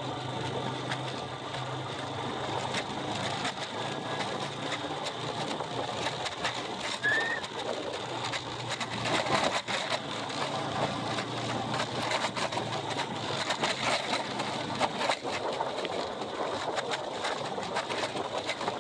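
Vehicle engine running steadily under heavy wind noise, with scattered clicks and rattles throughout and a short high squeak about seven seconds in.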